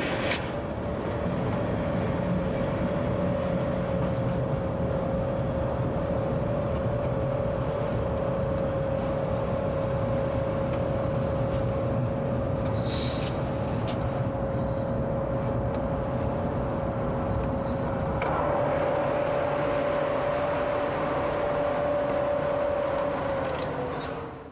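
A train heard from the driver's cab, rolling slowly over the rails with a steady low rumble and a constant whine; the whine steps up slightly late on, then dips as the sound fades out.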